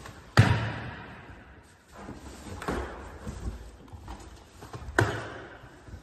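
Unpacking a cardboard bicycle shipping box: parts knocked down onto a tiled floor and cardboard packaging handled. Sharp knocks about half a second in and again about five seconds in, with a softer one between, each fading into rustling.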